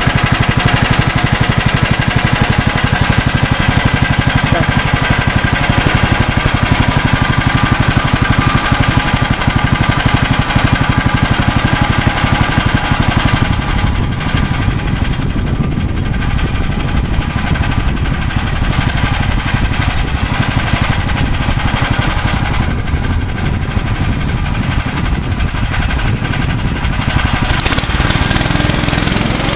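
Prototype snowmobile's 13 hp four-stroke engine idling steadily.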